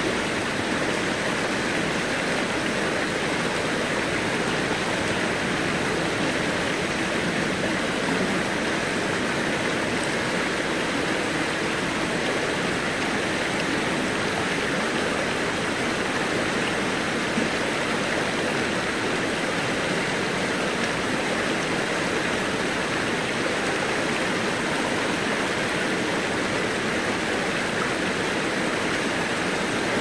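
Shallow stream running over stones: a steady rush of water that holds at one level throughout.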